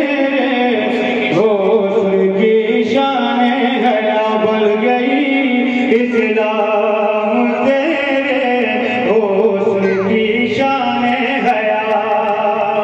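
A man singing an Urdu naat verse in a drawn-out melodic chant, with long held notes that turn in pitch, through a public-address system.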